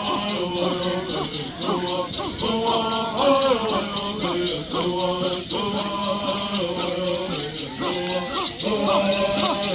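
Traditional Bird song: singers' voices over gourd rattles shaken in a steady, fast rhythm.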